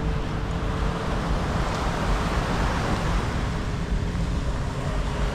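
Beach ambience: a steady low rumble of wind and surf, with a faint steady engine hum.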